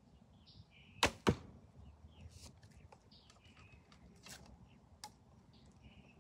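A traditional longbow being shot: a sharp slap of the string on release, then about a quarter second later a second sharp hit as the arrow strikes the target. Afterwards come a few small clicks as the next arrow is nocked, with birds chirping faintly.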